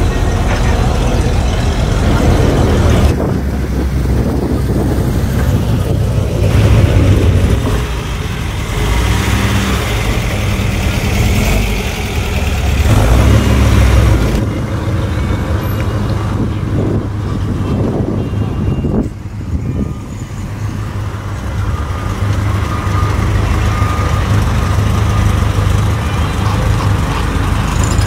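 Engines of classic cars and trucks running as they drive slowly past one after another, a steady low rumble whose sound changes abruptly several times, with crowd voices in the background.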